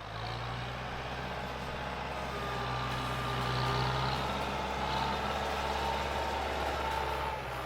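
Tractor engine running steadily with a deep low hum.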